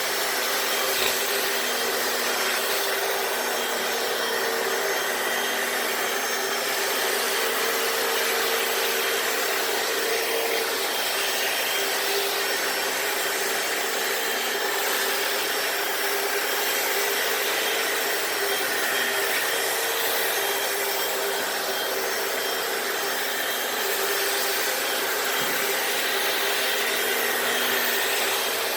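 Hoover FloorMate wet hard-floor cleaner running steadily, its suction motor whirring with a constant hum while its brushes scrub a concrete garage floor.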